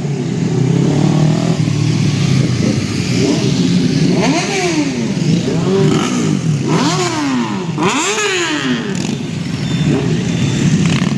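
Motorcycle engines running, with a series of about five quick throttle blips in the middle, each one a rise and fall in pitch.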